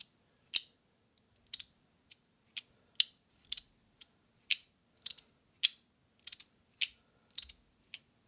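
3D-printed fidget slider clicking as its plate is slid and snaps back into place: sharp clicks about twice a second, some in quick pairs.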